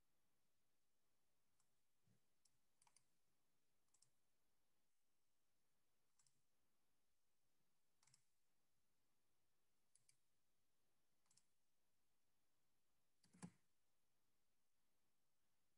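Near silence: quiet room tone broken by about ten faint, scattered clicks, with one louder knock a little before the end.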